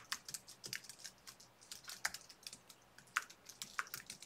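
Typing on a computer keyboard: a quick, uneven run of keystrokes.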